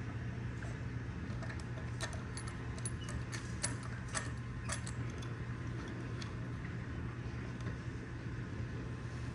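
Several light metallic clicks and clinks, mostly between about two and five seconds in, as a hand works the metal clamp latch on the ring of a tower beacon's lens housing. A steady low hum runs underneath.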